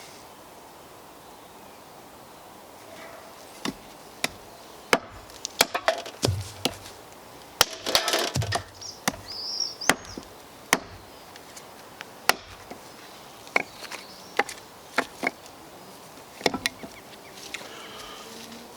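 Prototype multi-tool blade lashed onto a handle as a makeshift axe, chopping wood: a dozen or so sharp, irregular chopping strikes starting a few seconds in. The head is tied on loosely enough to pivot, which the user puts down to a hurried first lashing.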